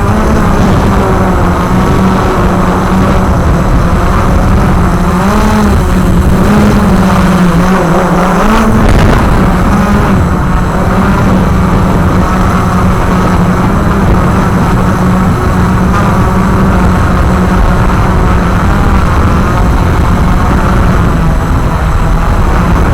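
Walker QR X350 Pro quadcopter's motors and propellers humming steadily in flight, the pitch wavering up and down for a few seconds about six to nine seconds in.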